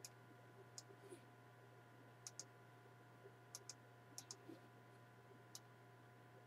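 Near silence with faint computer mouse clicks, about a dozen, several in quick pairs, over a low steady electrical hum.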